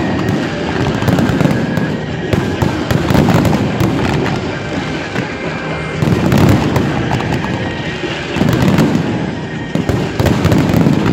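Fireworks display: many bangs and crackles in quick succession, with heavier booms every two to three seconds.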